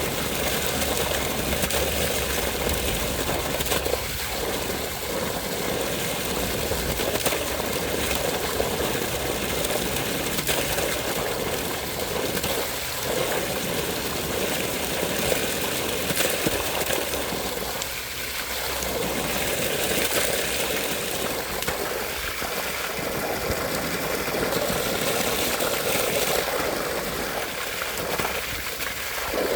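Flowing water running steadily without pause, with a constant rushing noise that shifts a little in strength.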